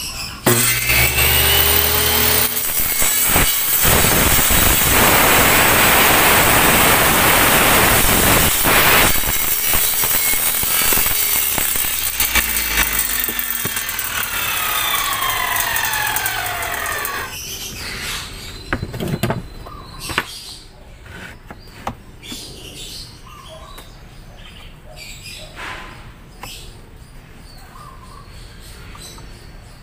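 Table saw starting up with a rising whine and running, louder and noisier for several seconds as the blade cuts wood. It is then switched off and spins down, the whine falling in pitch, followed by scattered light knocks and clicks.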